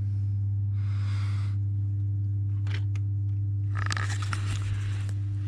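Steady low electrical hum, with brief rustles and a couple of light clicks.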